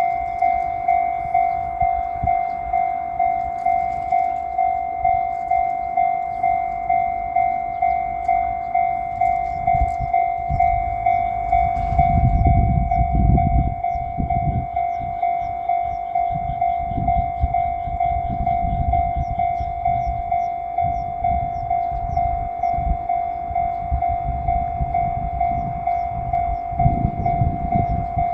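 Japanese level-crossing warning bell ringing, an electronic two-tone clang repeating about three times every two seconds. From about ten seconds in, a JR Shikoku 8000 series Anpanman train rumbles past over the crossing, loudest a few seconds later and again near the end.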